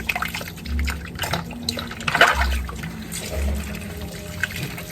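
Tap water running in a sink as a food chopper's sharp blade is rinsed, with scattered clicks and knocks of the parts being handled.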